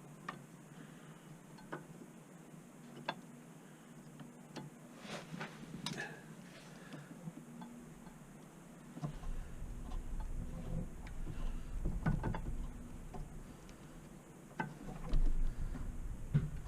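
Small metal clicks and clinks of brake pads and caliper parts being handled and fitted, scattered irregularly, with dull handling knocks in the second half.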